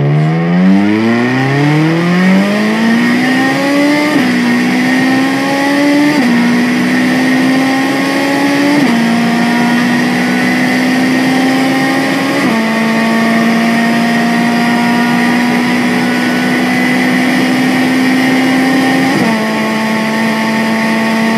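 Ferrari 458 Italia's flat-plane-crank V8 at full throttle, revving hard toward its roughly 9,000 rpm redline. The rising engine note is broken by five quick upshifts, each dropping the pitch before it climbs again, with the gears lasting longer each time.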